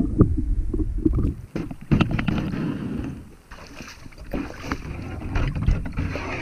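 Wind rumbling on the microphone, with scattered knocks and water sounds around a plastic Pelican kayak hull. A steady hiss comes in a little after halfway.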